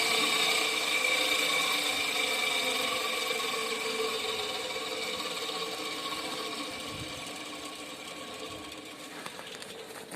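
Homemade vibrating table running: its washing-machine motor spins a pulley with a bolt screwed into it as an off-centre weight, giving a steady mechanical hum that grows gradually quieter.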